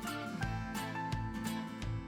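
Background music: light plucked guitar with a steady beat.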